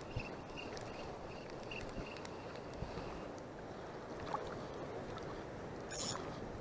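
Steady wash of choppy shallow sea water and wind, with a faint regular ticking about two or three times a second in the first half as a spinning reel is wound, stopping about three seconds in. A short sharp click comes near the end.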